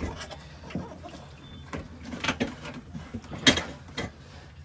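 A few sharp knocks and rattles of a trap cage being handled and shifted about, the loudest about three and a half seconds in.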